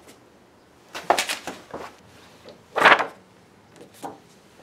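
Short rustles and clicks of a paper banknote and a paper certificate changing hands, with a cluster about a second in and the loudest rustle near three seconds.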